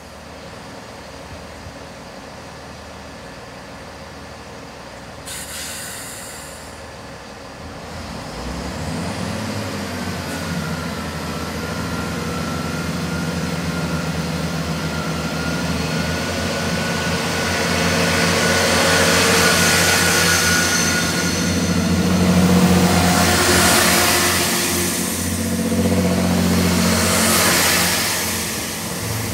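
Class 166 Networker Turbo diesel multiple unit pulling away from the platform. About eight seconds in, its underfloor Perkins diesel engines open up, and the engine note and a rising transmission whine build as the train accelerates past, loudest over the last ten seconds.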